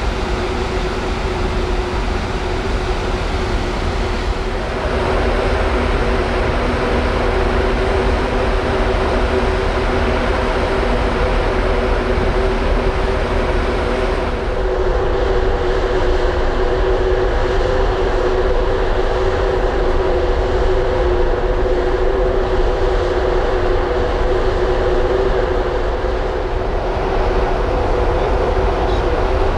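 Steady drone of a large ferry under way, the ship's engines humming over a rumble of wind and water. The hum shifts slightly a few times.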